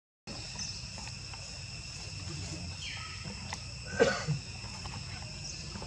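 Steady, high-pitched insect drone of several even tones, with a short, loud falling call about four seconds in.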